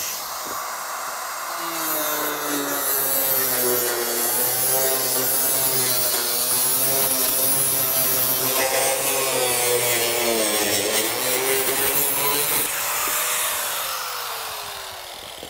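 Angle grinder with a continuous-rim ceramic tile blade cutting through vinyl siding, its motor whine dipping and recovering as the blade bites. It winds down with a falling pitch near the end.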